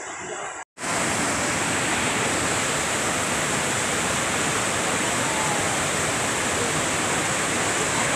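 Mountain stream rushing in white-water rapids over boulders, heard close up as a loud, steady rush of water. It follows a brief dropout under a second in; before that the water is fainter.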